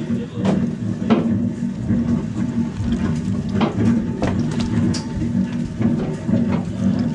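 The boat's engine runs steadily as a low hum underneath. Scattered knocks and thuds come from whole fish being shifted and packed into a plastic ice box.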